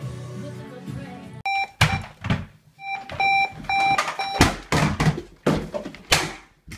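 Electronic beeping in short repeated bursts while something is struck with hard, repeated blows. The beeping stops about four seconds in and the blows keep coming. Before this, the first second and a half is background music.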